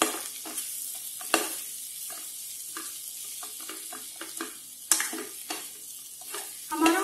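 Metal ladle stirring and scraping dry potato and capsicum pieces around a stainless steel kadai over a steady frying sizzle, with repeated scrapes and clinks of the ladle on the pan, two sharper knocks about a second and a half in and near five seconds.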